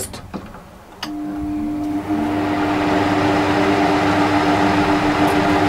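A click as the rotary control knob of a Trotec TTK 75 E dehumidifier is turned about a second in, and the unit starts with a steady hum. From about two seconds in the rush of its blower fan spinning up rises and grows steadily louder. The fan is what is mostly heard; the compressor is barely audible.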